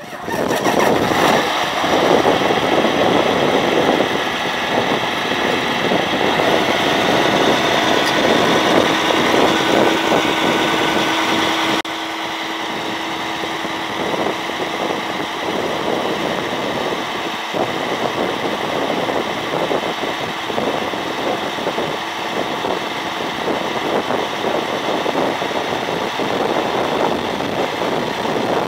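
Diesel engine of a John Deere two-track crawler tractor running steadily under load while pulling a tillage implement. About twelve seconds in the sound cuts abruptly to a slightly quieter take of the same steady engine noise.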